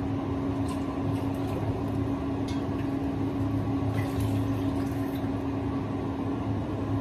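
Steady hum of an electric motor running, with one constant tone over a low rumble, and a few faint clicks.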